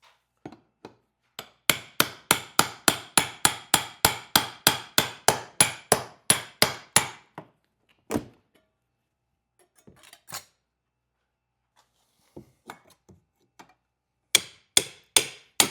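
Hammer striking a steel pry tool to break a metal crate strap, with ringing metal-on-metal blows. A quick, even run of about three or four strikes a second lasts some five seconds, then a few scattered knocks, then another short run of hard blows near the end.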